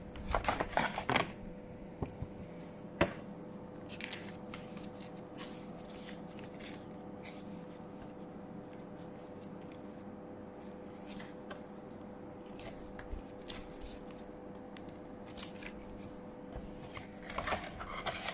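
Paper rustling and crinkling as a phone box's folded paper user guide and leaflets are handled: short bursts at the start and again near the end, with a single sharp tap about three seconds in.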